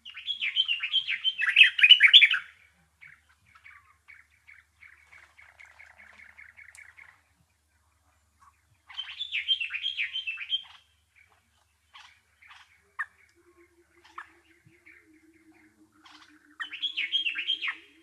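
Songbird singing in three loud bursts of rapid chattering notes, each about two seconds long, with quieter fast chatter between them. A faint low, fast-pulsed trill joins about two-thirds of the way through.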